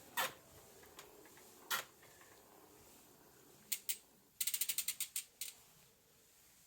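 Mechanical clicking from a Pinion C1.12 twelve-speed bicycle gearbox and its shifter: a few sharp single clicks, then a quick run of about a dozen clicks, some ten a second, a little past the middle.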